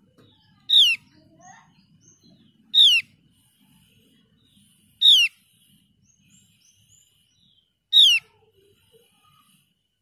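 Javan grey-throated white-eye (opior jawa) giving four loud, sharp call notes, each sliding down in pitch, a couple of seconds apart, with a few faint softer chirps between them.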